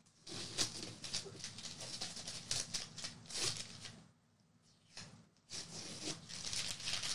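Masking tape and paper being peeled off a suede roller skate and crumpled, in rustling, crinkling spells with a pause of about a second and a half midway.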